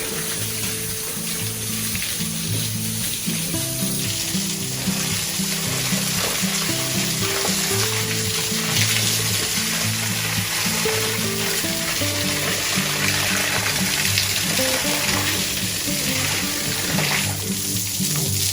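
Food sizzling in a hot pan, a steady frying hiss, over soft background music.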